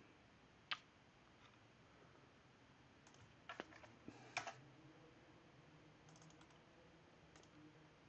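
Faint, sparse clicks of computer keyboard keys: one just under a second in, a small cluster of clicks around the middle, then a few fainter taps.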